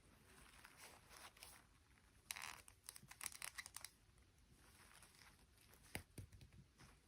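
Faint crinkling and tearing of packaging being handled, in a cluster of rustles a couple of seconds in, then a few light clicks and taps near the end.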